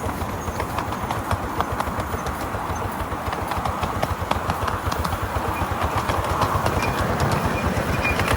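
Miniature railway train running with a fast, even clatter, growing slightly louder.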